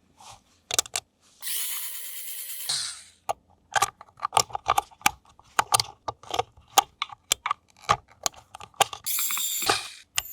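Rapid, irregular clicks and snaps of plastic toy parts being handled, with two short stretches of rustling or whirring noise, about a second and a half in and near the end.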